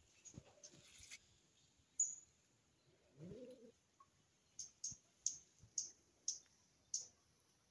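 Faint sounds: a cat meows once, briefly, about three seconds in, then a small bird gives a run of short, high chirps about twice a second.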